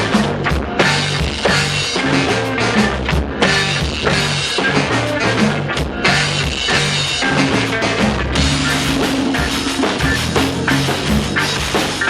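A band playing an instrumental passage of a reggae song, with drum kit, a repeating bass line and guitar.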